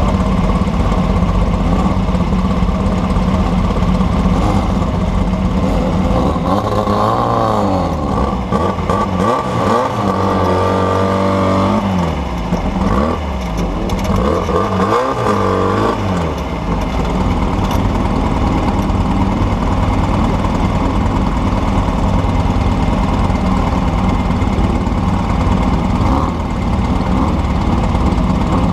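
Off-road desert race vehicle's engine running hard under load. The revs swing up and down several times in the first half, then hold steadier.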